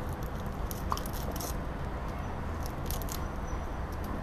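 Steady low background hum, with a few faint short clicks and sips as a child drinks from a plastic cup.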